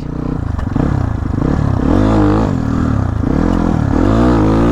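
Kayo dirt bike's engine revving hard, its pitch climbing and dropping twice, peaking about two seconds in and again near the end, as the rider throttles up for a wheelie attempt.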